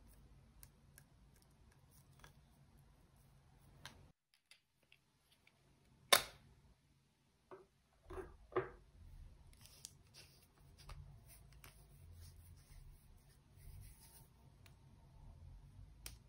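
Quiet handling of gold lipstick tubes: small clicks and scrapes as the caps are worked off. One sharp click about six seconds in is the loudest sound, followed by a few soft knocks near eight seconds.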